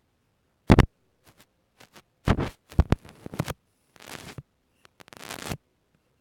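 Close-miked ASMR trigger handling: a run of short crinkling, tapping and rustling sounds, the sharpest about a second in. A close cluster follows around the middle, then softer brushing near the end.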